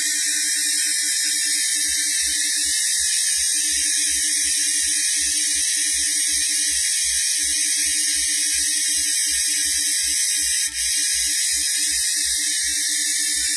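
CNC engraving machine running: a steady high-pitched whine from the high-speed spindle, with short, rhythmic low pulses and on-off mid tones underneath.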